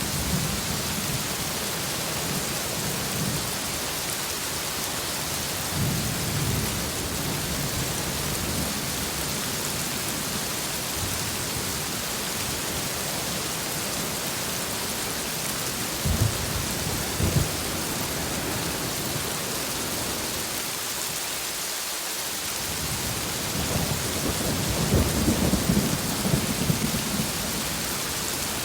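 Steady heavy rain, with rolls of thunder rumbling low: one about six seconds in, sharper cracks around sixteen to seventeen seconds, and a longer rumble near the end.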